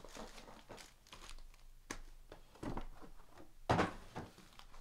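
Foil packs of Panini Prizm NBA trading cards crinkling and rustling as they are handled and stacked on a table, with one louder crinkle about three-quarters of the way through.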